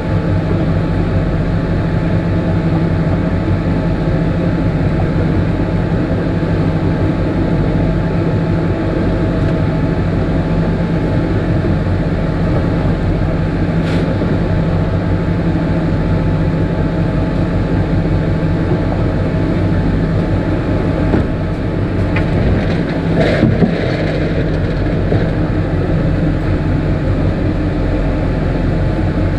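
Inboard MerCruiser 350 V8 engine of a small trawl boat running steadily under way, a constant low drone with water rushing along the hull, and one short click about halfway through.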